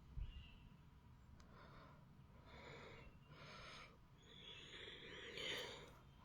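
Faint breathing close to the microphone, a series of soft breaths about a second apart, with a short low thump just after the start.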